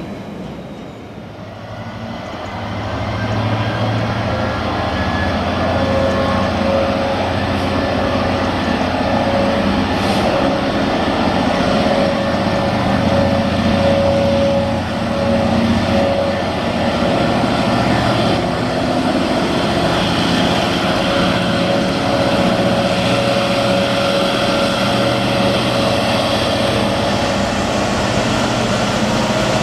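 GBRf Class 66 diesel locomotive approaching and passing. Its EMD two-stroke V12 engine drones steadily, with a steady high tone over it, growing louder over the first few seconds.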